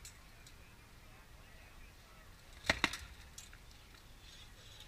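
Two sharp cracks in quick succession a little under three seconds in, with a fainter knock just after: rattan weapons striking shields or armour in SCA armoured sparring.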